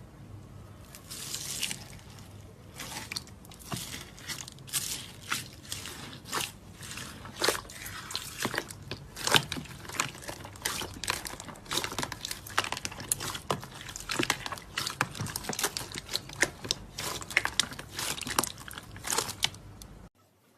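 Slime being squeezed and worked by hand: a continuous run of irregular sticky clicks, pops and crackles that cuts off suddenly near the end.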